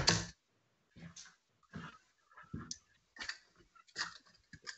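Irregular short knocks and clicks of steel-tip darts being handled and pulled out of bristle dartboards, with a louder knock right at the start.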